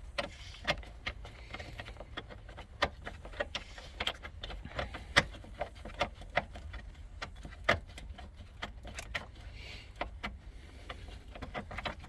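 Irregular sharp clicks and metallic clinks of a socket wrench and seatbelt latch hardware being worked by hand. The loudest clinks come about five seconds in and just before eight seconds.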